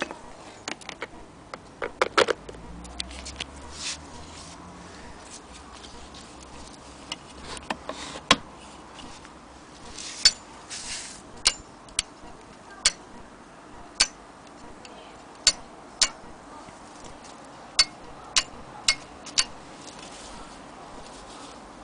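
Sharp clicks from a Singer Featherweight 222K sewing machine being worked by hand: a short clatter about two seconds in, then single clicks roughly every second or so from about ten seconds in until shortly before the end.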